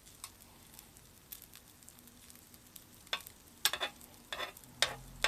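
Shrimp pilaf frying in butter on an electric hot plate, with a steady sizzle. A metal spoon stirs the rice, and it scrapes and taps against the plate several times in the second half.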